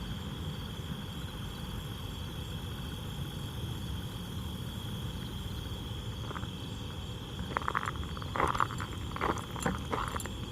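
Night insects, likely crickets, trilling steadily on one high note over a low background rumble. In the last few seconds comes a quick run of short scuffing or crunching sounds.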